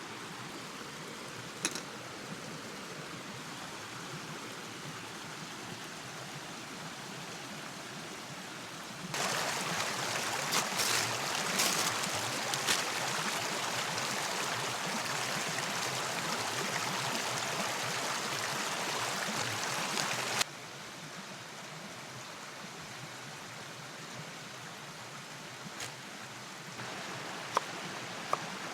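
Steady hiss of rain and running water. About nine seconds in, a much louder hiss flecked with crackles cuts in, then stops abruptly about eleven seconds later. A few sharp clicks come near the end.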